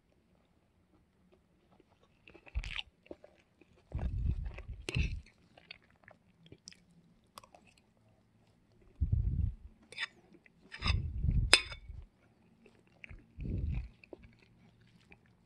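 A person chewing mouthfuls of food in several short bouts, with a few sharp clicks among them.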